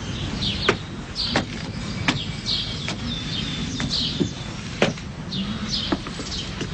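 Small birds chirping over and over, with footsteps on a hard floor, a sharp step roughly every three quarters of a second.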